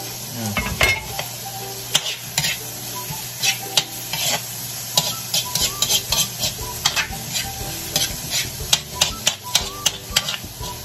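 Chopped onions and garlic sizzling in a little oil in a large metal wok. A spatula scrapes and taps against the pan again and again as they are stirred.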